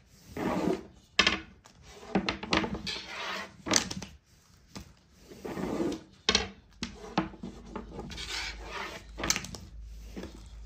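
A long, thin wooden rolling pin (oklava) rolling and knocking on a floured wooden board in repeated irregular strokes, with thin baklava dough rustling as it is wrapped around the pin and stretched out.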